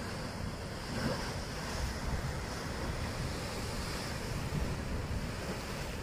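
Sea waves breaking and washing white through channels between flat rock ledges on a rocky shore, a steady surf, with wind buffeting the microphone as a low rumble.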